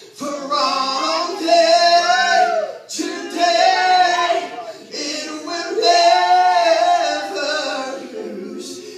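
A voice singing long, held notes in three phrases, with short breaks about three and five seconds in.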